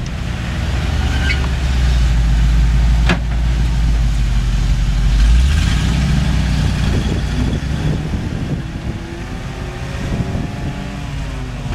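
1992 Ford F-700 truck's engine running as the truck drives past, loudest in the first five seconds or so and then easing off as it moves away. A single sharp click sounds about three seconds in.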